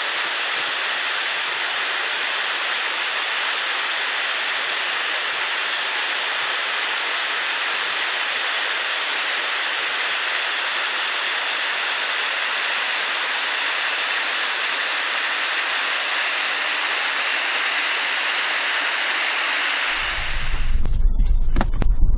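Waterfall: a steady rush of falling water. About 20 seconds in it cuts off suddenly and gives way to the low rumble of a vehicle driving.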